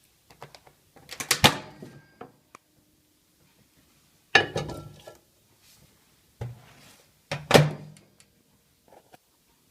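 Handling sounds at a microwave oven, its door and the things inside being moved: a series of sharp knocks and clatters, loudest about one and a half, four and a half and seven and a half seconds in.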